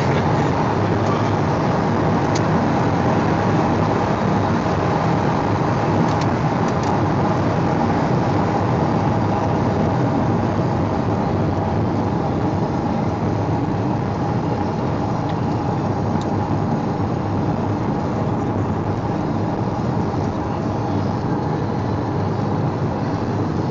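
Steady engine, tyre and wind noise inside the cabin of a Pontiac Grand Prix GXP cruising at speed, with no marked revving.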